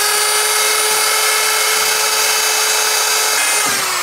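Electric wood router's motor running at full speed with a loud, steady high whine, then winding down, its pitch falling, about three and a half seconds in as it is switched off.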